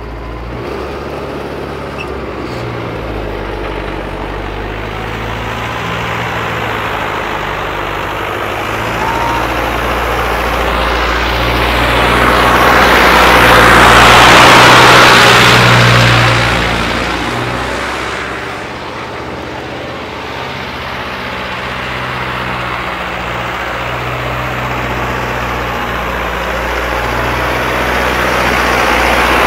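Mahindra Arjun Novo 605 4x4 tractor's modified turbo diesel engine working under load at moderate revs, around 1,900 rpm rather than full throttle, as it pulls a spring-tine cultivator through the soil. It grows louder as the tractor passes close about halfway through, fades, then builds again near the end.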